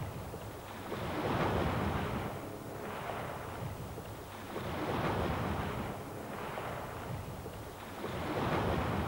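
Sea waves washing in, each surge of surf swelling and falling away, three times, about every three and a half seconds.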